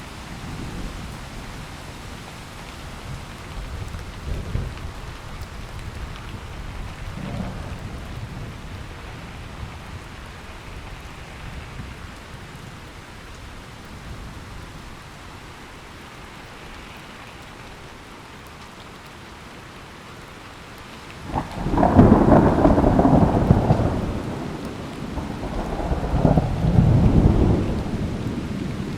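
Steady rain with low rolling thunder, then a loud crack of thunder about three-quarters of the way through that rumbles on for a few seconds, followed by a second loud peal near the end.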